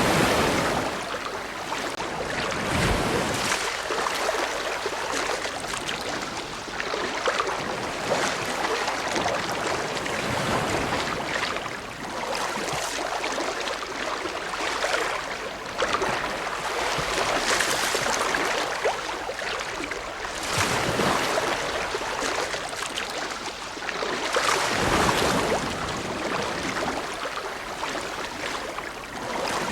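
Ocean waves breaking and washing on the shore: a continuous rush of surf that swells and falls every few seconds.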